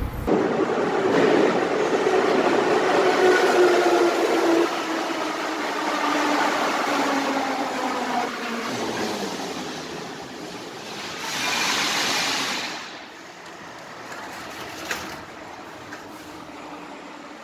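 Kyiv metro train pulling into the station: loud wheel and motor noise with a whine that falls slowly in pitch as the train slows. About eleven seconds in, a hiss swells and fades, then a single click sounds over a quieter rumble.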